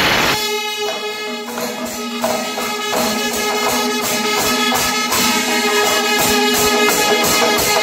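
Panchavadyam temple ensemble playing: long held horn notes over a dense, steady rhythm of clashing cymbals and drums. A loud noisy crash dies away in the first half second.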